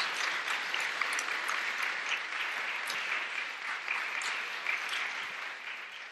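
Audience applauding, fading away toward the end.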